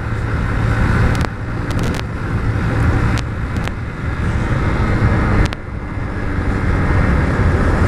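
Small motorcycle engine running as the bike is ridden, a steady low hum under heavy wind and road noise on the microphone, with a few sharp clicks.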